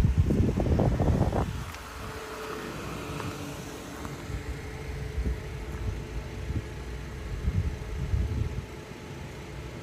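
Wind buffeting the microphone in low rumbling gusts, heaviest in the first second and a half, over a faint steady hum.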